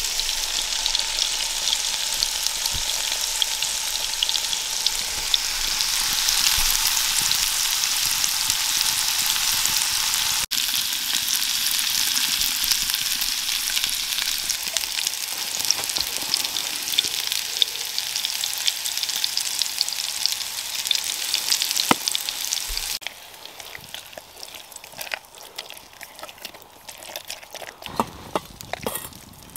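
Chicken pieces frying in a pan over a campfire: a steady, crackling sizzle. About three quarters of the way through the sizzle stops, leaving quieter clinks and knocks.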